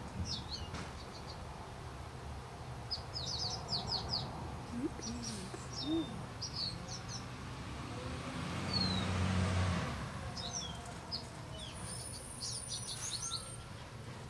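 Small birds chirping in short, quick runs of high notes several times, over a steady low background hum. A broad rushing sound swells and fades about nine seconds in.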